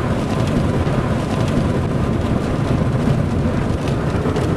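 Loud, steady rumble of wind and road noise inside a moving car in a thunderstorm, with rain on the windshield.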